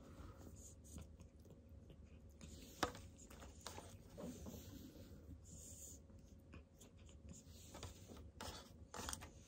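A cat chewing small pieces of raw horse meat: faint, soft mouth sounds with scattered sharp clicks, the clearest about three seconds in and a few more near the end.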